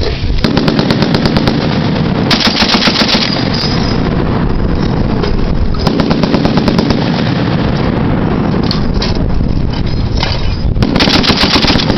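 .50-caliber machine gun firing four short bursts of automatic fire, the shots coming rapidly and evenly, over a steady low rumble.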